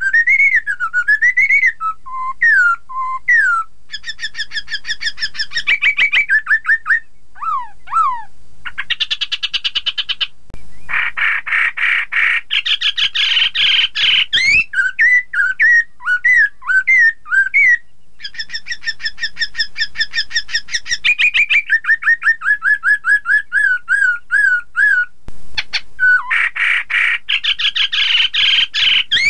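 Black-throated laughingthrush singing continuously: loud, varied whistled phrases that swoop up and down, fast runs of repeated notes, and twice a louder, denser spell of rapid chattering notes.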